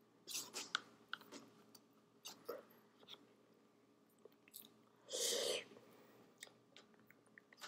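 A person quietly chewing a spoonful of oatmeal, with small wet mouth clicks and smacks, and a short hiss-like noise about five seconds in.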